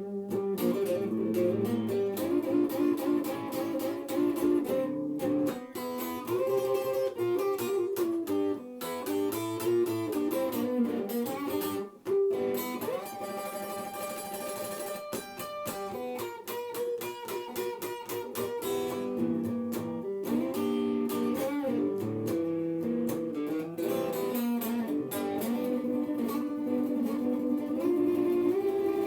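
Guitar playing an instrumental break in a slow blues, picked melodic lines with no singing.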